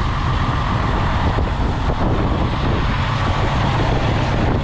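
Western Star 5700XE semi truck's diesel engine idling with a steady low rumble.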